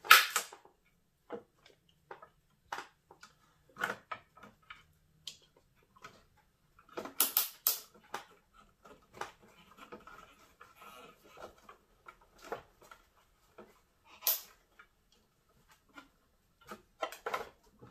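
Scattered small clicks and knocks of plastic as hands tighten the pump's tubing fittings by hand. A sharp click comes right at the start, a quick run of clicks a little before halfway, and another sharp click about three-quarters of the way through.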